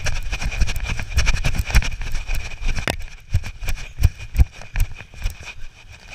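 Handling noise on a body-worn action camera as its wearer runs: wind rushing over the microphone, with irregular thuds and sharp knocks, a strong knock about halfway through. A steady high whine runs underneath.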